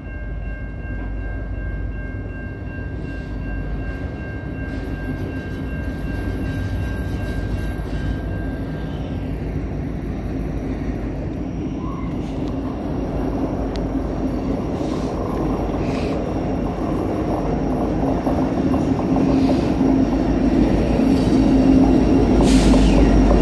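Diesel-hauled freight train approaching, the locomotive's low rumble growing steadily louder. A few steady high tones sound together during the first several seconds, then fade out.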